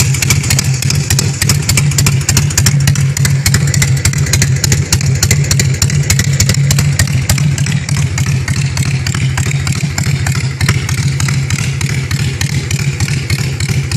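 Honda Shadow VLX 600 bobber's V-twin engine idling steadily with a rapid, even crackle, heard harsh and distorted through a phone's microphone.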